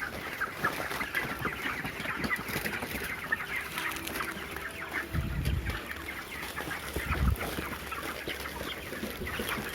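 A flock of broiler chickens clucking and chirping continuously, many birds at once. A dull low thump comes about five seconds in and another about seven seconds in.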